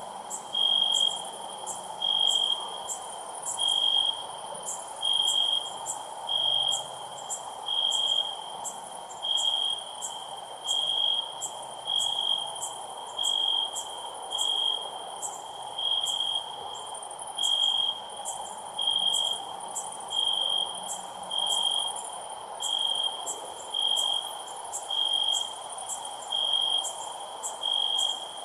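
Cricket chirping: short, evenly spaced chirps, about three every four seconds, over a steady background hiss, with faint rapid ticking higher up.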